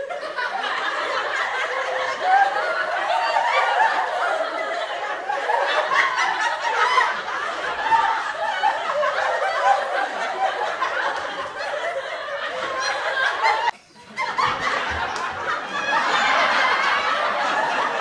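A crowd laughing, many voices overlapping in a continuous wash of laughter. It cuts out for a moment about three quarters of the way through, then starts again.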